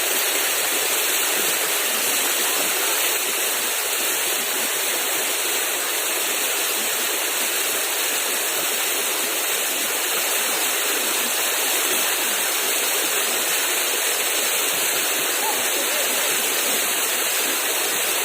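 Steady rushing of flowing river water, an even hiss that holds at one level throughout.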